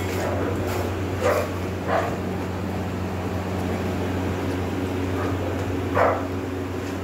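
A dog barking, a few short single barks with the loudest near the end, over a steady low mechanical hum.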